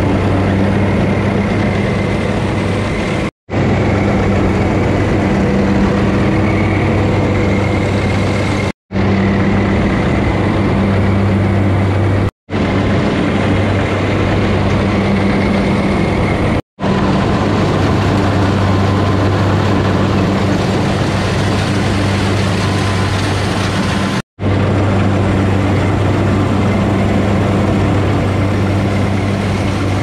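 Rice combine harvester's diesel engine running steadily under load, a constant low hum with machinery noise on top. The sound drops out to silence for an instant five times.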